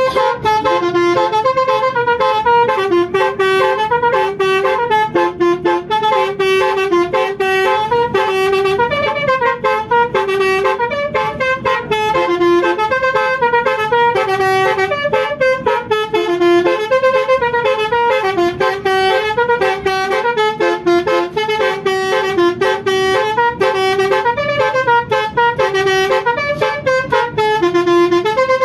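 Bus's telolet basuri musical horn playing a fast melody, its notes changing several times a second without a break.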